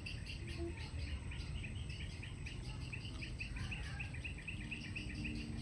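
Background ambience: a rapid, even series of short high chirps, about five a second, from a small animal such as a bird or insect, over a low steady rumble.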